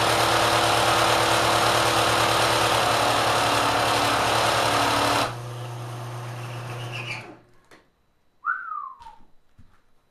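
Kenmore sewing machine driven by a 3/4 hp motor, running loud and fast. About five seconds in the sewing noise cuts out suddenly and only a lower steady hum of the motor is left, the sign that the machine has locked up; the hum stops about two seconds later. A short falling squeal comes near the end.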